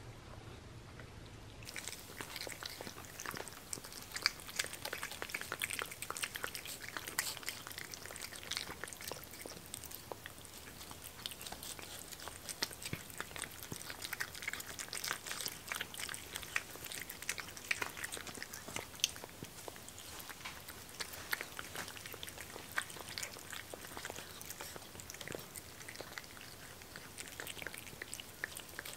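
House cats chewing wet raw rabbit nuggets topped with broth, close up: a dense run of small wet chewing clicks that grows louder about two seconds in.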